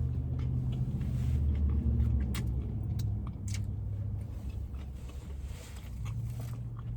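Low, steady vehicle rumble that swells a little a second or two in, with a few faint clicks over it.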